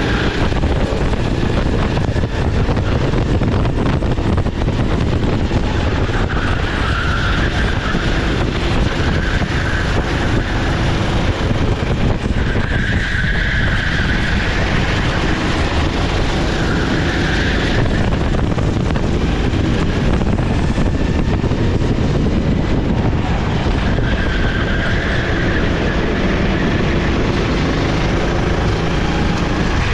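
SR4 racing kart's single-cylinder 390 cc four-stroke engine running hard on track, loud and steady, its note swelling and easing several times as the throttle is worked.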